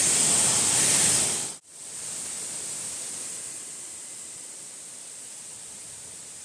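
Waterfall: a steady rush of falling water. It breaks off suddenly about a second and a half in and comes back much quieter, easing down slightly.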